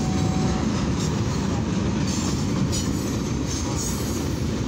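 Freight cars of a long mixed freight and steel train rolling past at about 35 mph: a steady, loud rumble of wheels on rail, with brief higher rattles now and then.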